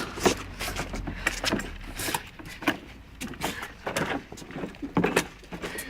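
Toy car being jostled: irregular clicks, knocks and scrapes, several a second, over a low rumble.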